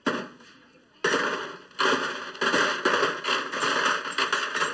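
A rapid, dense clatter of many hard objects dropping onto a pile, with one sharp hit at the start and then a continuous run of clattering from about a second in.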